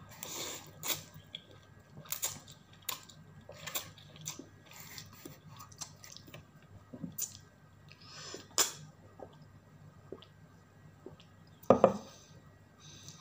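A person eating noodles close to the microphone: slurping at the start, then irregular wet chewing and mouth sounds. There is one louder sharp knock near the end.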